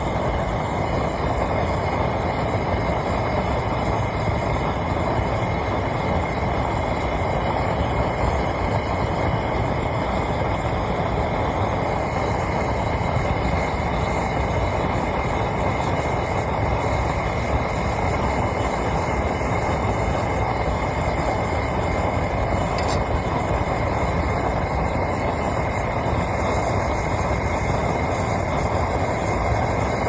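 Homemade bucket furnace's gas burner firing to melt aluminum scrap: a steady rushing noise of flame and air that holds one level throughout. A faint single click comes about two-thirds of the way through.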